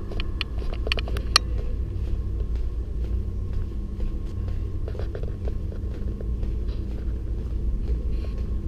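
Steady low rumble of wind on the camera microphone over a faint constant hum, with a few sharp clicks of footsteps in the first second and a half and a few fainter ones about five seconds in.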